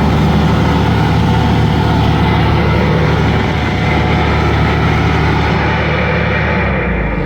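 Bobcat skid-steer engine at high load driving an SG60 hydraulic stump grinder, its worn-toothed cutter wheel chewing through a stump with a loud, rough grinding over the steady engine drone. The load eases a little near the end.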